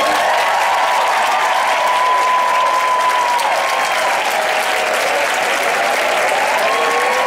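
Audience applauding, with steady clapping throughout.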